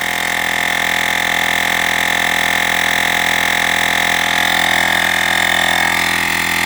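Olgeo M7 cordless portable air compressor running steadily as it pumps up a car tire at about 28 psi, a loud even whine that shifts slightly about six seconds in.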